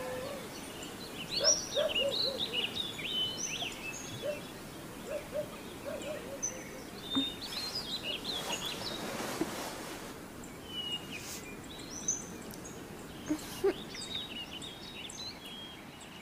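Small birds chirping and twittering on and off over a steady background hiss, with a soft rustle about nine seconds in.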